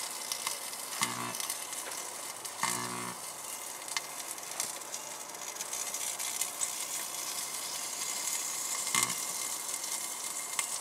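Light bulb arcing inside a running microwave oven, with plasma forming: a steady crackling sizzle, broken by three short buzzes about a second in, near three seconds and near the end.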